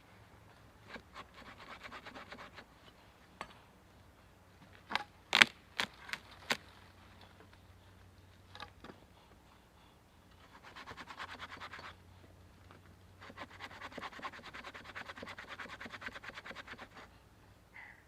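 Large 30-inch hand saw cutting a log in scratchy runs of quick strokes, three spells of sawing with pauses between. A few sharp knocks come about five to six and a half seconds in.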